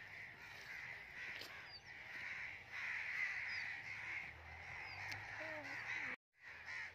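Crows cawing in a steady background chorus that swells and fades, with a few short higher bird chirps. The sound cuts out abruptly for a moment near the end.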